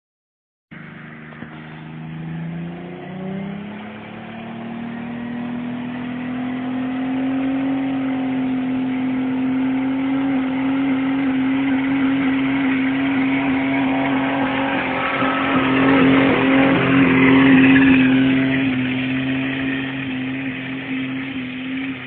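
Car engine revving up about three seconds in and then held at steady high revs through a long burnout, the rear tyres spinning on the asphalt. It is loudest a little past the middle.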